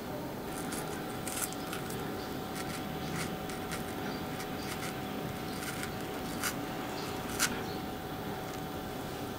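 Paring knife cutting into a fresh strawberry to core out its hull: faint soft cutting with small clicks and ticks, and two sharper clicks in the second half.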